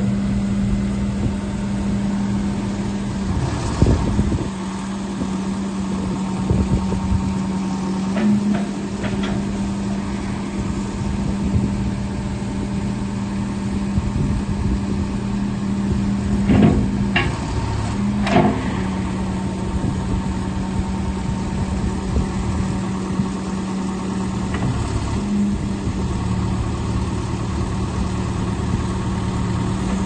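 Case 580G backhoe loader's diesel engine running steadily while the backhoe arm is worked down and back up, with a few sharp clunks from the arm.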